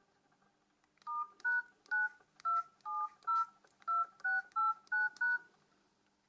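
Nokia C3-01 keypad tones: about eleven quick two-tone DTMF beeps as a code is keyed in on the phone, typical of entering a service code such as the one that calls up the phone's life timer (total talk time).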